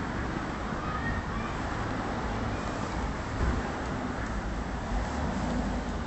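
Steady outdoor background rumble, like distant road traffic, with a few faint short chirps about a second in.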